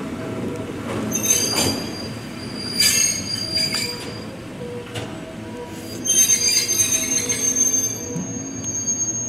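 Ohmi Railway car 226, a nose-suspended-motor electric railcar, moving slowly over yard track with high-pitched metal squealing from its wheels. Short squeals come about a second in and again near three seconds. A longer steady squeal sets in about six seconds in.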